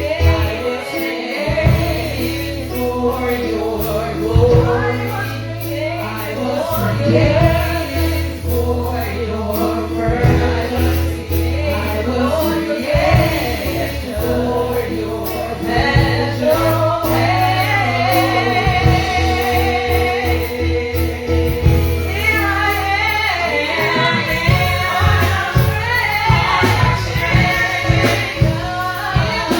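Gospel praise and worship music: a choir of mostly women's voices singing over a steady bass line and band.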